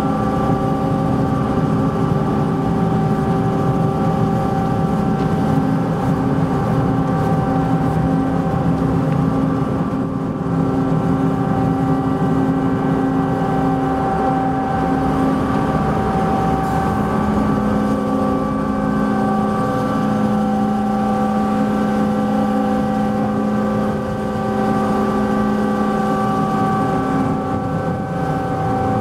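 Machinery of the car ferry MV Queen of Cumberland, heard on its car deck as it pulls away from the dock: a loud, steady hum made of several tones. About two-thirds of the way in, the mix of tones shifts.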